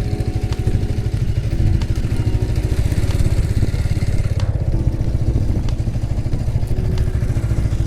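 A vehicle engine running steadily, with a fast, even low pulsing, under background music.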